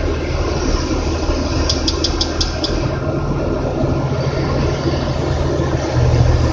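Crane engine running steadily, with a quick run of about six sharp ticks about two seconds in, and the engine getting louder near the end.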